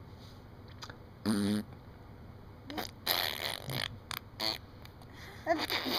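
A baby blowing raspberries: several wet, spluttering lip buzzes. A short buzzy one comes about a second in, a longer sputtering one around three seconds, and more near the end.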